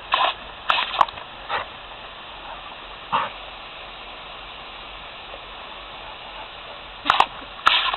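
A dog barking in short sharp bursts: several in the first second and a half, one about three seconds in, and two more near the end, over a steady background hiss.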